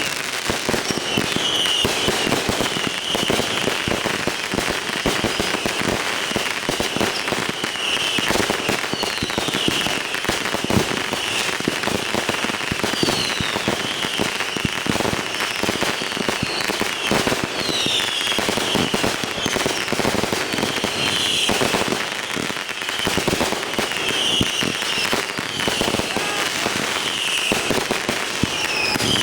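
Fireworks going off without pause: a dense, continuous crackle of firecrackers and shots, with short falling whistles every second or two.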